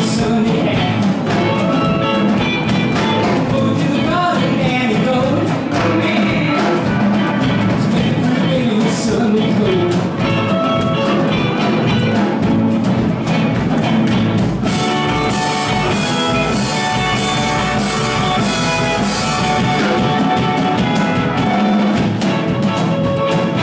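Live 1950s-style rock and roll band playing: two electric guitars, upright bass and a drum kit. The cymbals grow louder and brighter for about five seconds past the middle.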